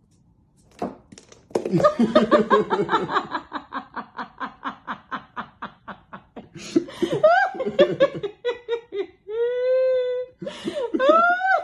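A person laughing hard in a long run of rapid, rhythmic bursts, then a drawn-out high squeal and a couple of rising whoops near the end.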